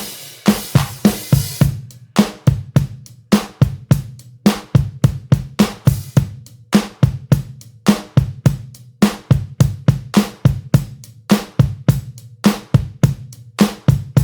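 Background music with a steady drum beat of bass drum, snare and hi-hat, with a cymbal wash during the first second or two.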